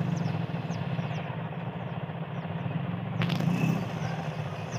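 Steady low engine drone, with a short sharp click about three seconds in.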